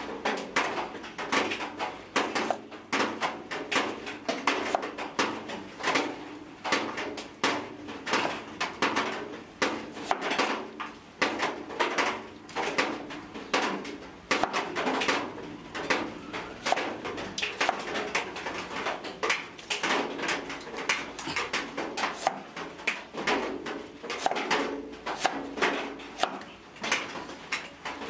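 A steel cleaver chopping banana flower on a wooden chopping board: a long run of repeated sharp knocks, several a second, as the blade goes through and strikes the board.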